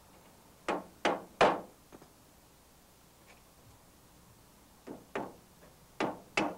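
Hammer tapping small nails into the metal flashing along the edge of a greenhouse roof panel: three knocks about a second in, then four more near the end.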